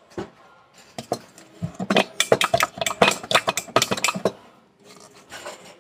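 A kitchen utensil clinking and scraping against a dish: a couple of single clicks, then a quick run of knocks lasting about three seconds.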